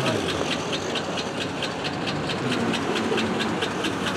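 Chevrolet Silverado pickup's engine idling, with a fast, even ticking of about six a second over a steady rumble.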